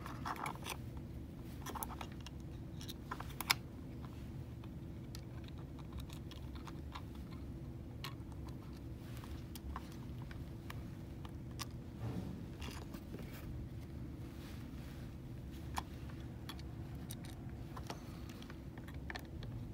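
Scattered small clicks and scrapes of screws being handled and driven with a small screwdriver into the plastic case of a Philips DigiTrak XT Holter monitor, with one sharper click about three and a half seconds in. A steady low hum runs underneath.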